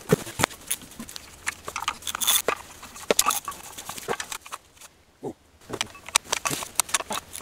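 Irregular metallic clicks and knocks of hand tools and parts being worked on a scrap engine, including a socket wrench on the flywheel bolts. A short quiet stretch in the middle is broken by a single knock.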